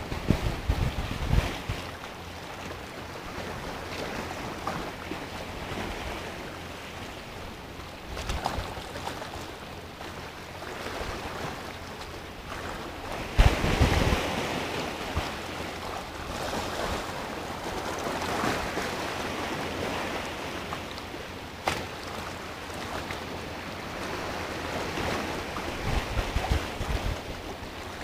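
Sea waves washing and breaking around a rock, swelling and falling, with the loudest wave crashing about halfway through. Wind buffets the microphone in low gusts near the start and near the end.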